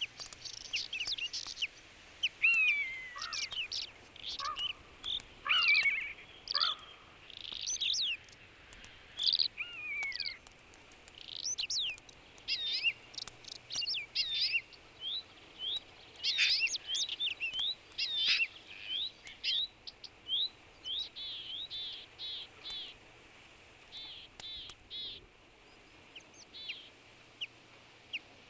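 Birdsong in woodland: several small birds chirping and whistling, with overlapping calls dense at first and thinning to short, quick repeated notes near the end.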